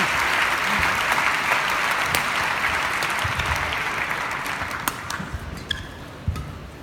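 Large arena crowd applauding, the applause dying away about five seconds in. Near the end come a few sharp clicks of badminton rackets striking the shuttlecock as a rally gets under way.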